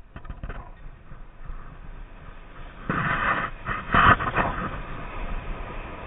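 Footsteps crunching in packed snow. A few light crunches come first, then two louder ones about three and four seconds in.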